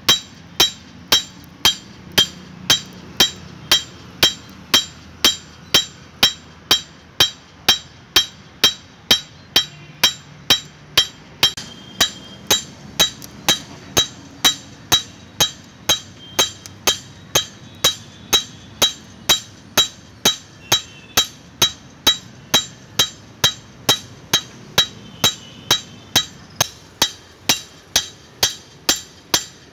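Blacksmith's hand hammer striking a steel meat cleaver blade on an anvil, forging it: a steady run of sharp, ringing metal blows at about two a second.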